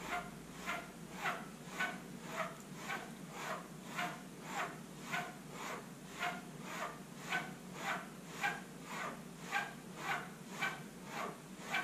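Straight razor being stropped on a canvas strop loaded with chromium oxide: a steady rhythm of light strokes, just under two a second. This stage polishes the edge and removes the last of the burr left by the 6,000-grit stone.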